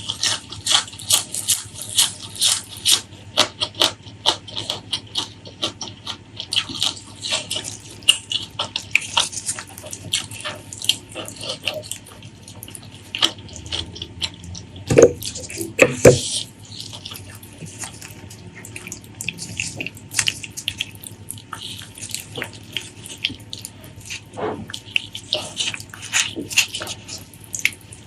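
Close-miked eating sounds of braised pork trotter being chewed: a dense run of quick, wet mouth clicks and smacks. About halfway through come two louder knocks, a second apart.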